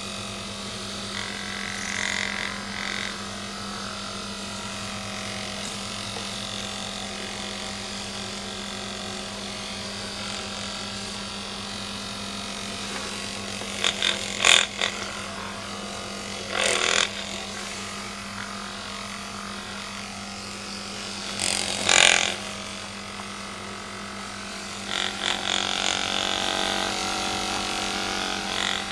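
Handheld Magnessage magnetic massager's vibrating motor humming steadily against a cat's fur. A few louder scuffing noises come about halfway through and again later on.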